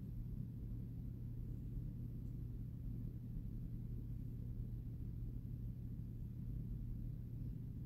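A steady low hum with no other sounds.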